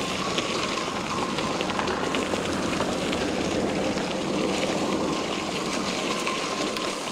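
Bicycle tyres crunching over a loose gravel road while the loaded bike rattles, a steady crackling noise with many small clicks.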